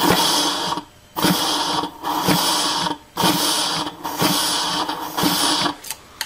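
Compressed air blown in about five short blasts through a rubber-tipped air nozzle into an automatic transmission's case passage, hissing as it applies the B clutch (3-5 reverse clutch) piston. This is an air check of the clutch pack's seals for leakage.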